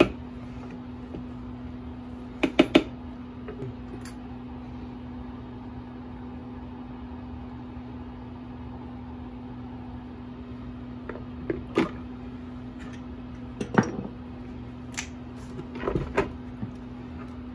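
A rubber spatula knocking and scraping against a plastic food processor bowl as thick peanut sauce is scraped out into a dish: a quick run of sharp knocks about two and a half seconds in, then scattered clicks and knocks near the end, over a steady low hum.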